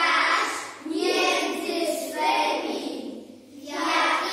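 A group of young children's voices in unison, in phrases broken by a short breath about a second in and a longer pause about three seconds in.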